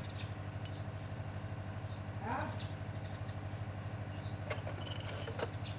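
A motor running steadily with a rapid even pulse, like an engine at idle, with a couple of short chirps and a few light sharp clicks over it.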